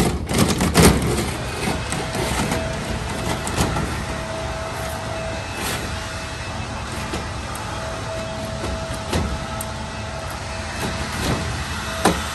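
Clicks and rattles of the greenhouse's metal-framed sliding door and clear panels being handled in the first second, then a steady mechanical hum with a faint whine, broken by a few scattered knocks.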